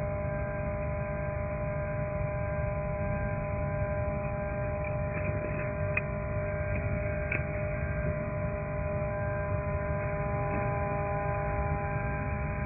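Elephant industrial vacuum unit running: a steady machine hum with several fixed tones over a low rumble. A few light clicks come in the middle.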